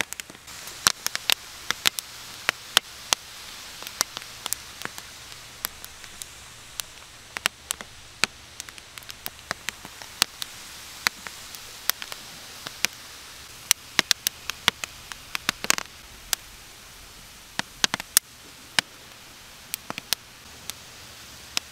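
Seaweed steaming and sizzling on fire-heated rocks over a pile of seafood: a steady hiss of steam with frequent sharp, irregular pops and crackles, and a brief louder rush about 16 seconds in.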